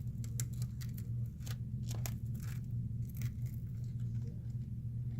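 Cracked phone screen and its adhesive crackling in scattered small clicks and ticks as it is pried up with a plastic pick, over a steady low hum.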